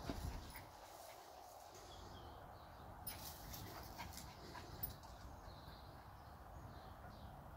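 Faint sounds of a small dog moving about, with a few soft clicks, over quiet outdoor background noise.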